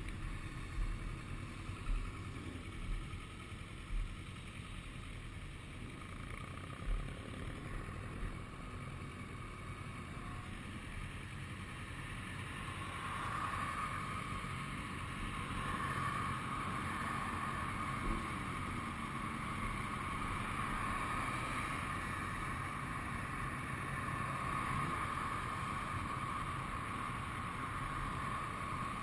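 Wind rushing over the microphone of a camera on a moving motorcycle, with the motorcycle running underneath. Low thumps of wind buffeting come every second or so in the first several seconds, then a steadier, higher hiss grows louder from about halfway through.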